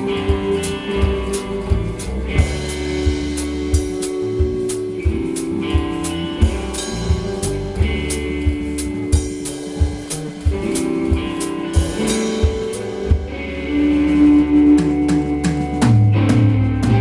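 Live band jam: guitar chords over a drum kit keeping a steady beat, with low bass notes coming in near the end.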